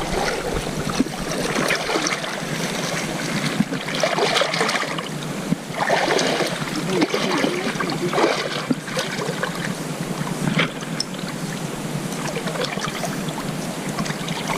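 Steady rush of flowing river water, with a few louder surges about 4, 6 and 8 seconds in.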